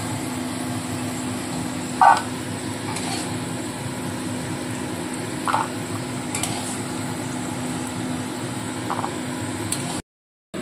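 Metal spatula scraping and clinking against a steel kadai and bowl while fried cashews and almonds are lifted out of the oil, over a steady low sizzle and hum. A handful of short clinks, the loudest about two seconds in; the sound drops out briefly near the end.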